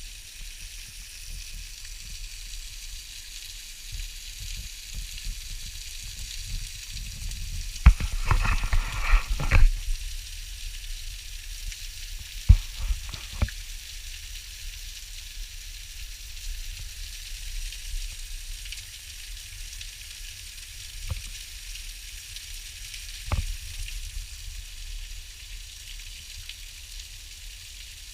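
Steady hiss of rushing water from a waterfall, with a low rumble and a few bumps and knocks on the camera, loudest about eight seconds in and again about four seconds later.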